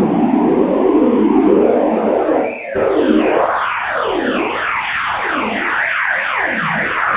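Electronic sound-design collage: a wavering, noisy drone, then after a short dip about two and a half seconds in, many overlapping synthesized tones sweeping down and up over each other, siren-like.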